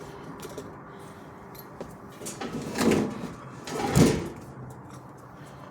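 Handling noise from cords and gear being moved, with scattered light clicks and two louder rustling scrapes about three and four seconds in.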